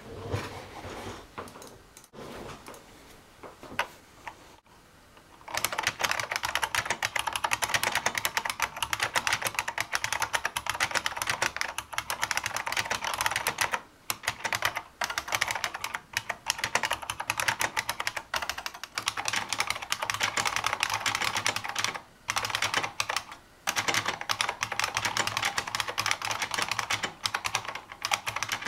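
Fast typing on a 2009 Unicomp SpaceSaver keyboard's buckling spring key switches: a dense, continuous clatter of sharp clicks. It starts about five seconds in after a few scattered softer sounds and pauses briefly twice.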